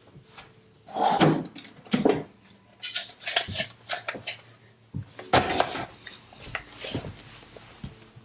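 Wax-based coloured pencils clacking and rattling against each other as they are picked through and taken out, a string of irregular sharp knocks.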